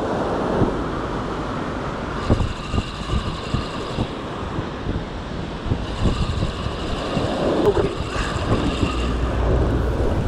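Wind buffeting the microphone over surf breaking on the beach, with a faint high tone that comes and goes twice, each time for a couple of seconds.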